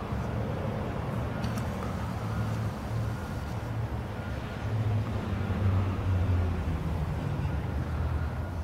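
Low, steady rumble of road traffic, swelling slightly a few seconds in and easing again.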